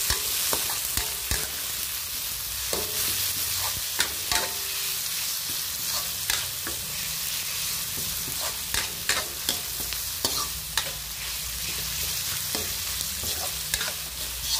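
Diced tomatoes sautéing in hot oil with garlic and onion in a metal pan: a steady sizzle, with frequent short scrapes and clinks as a metal spoon-spatula stirs them against the pan.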